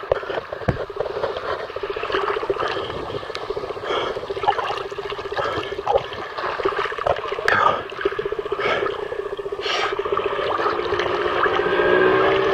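Sea water sloshing and splashing around a camera held half-submerged at the surface, heard muffled, over a steady hum of boat engines that grows fuller about ten seconds in.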